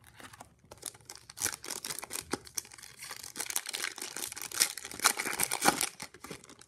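An Upper Deck MVP hockey card pack wrapper being torn open and crinkled by hand: a dense crackling with sharper rips, starting about a second in and stopping shortly before the end.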